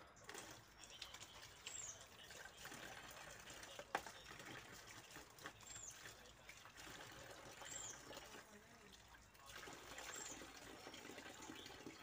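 Water running from an outdoor tap and splashing as a man washes his hands and face under it, faint. A bird gives a short, high, falling call every two seconds or so, and there is one sharp click about four seconds in.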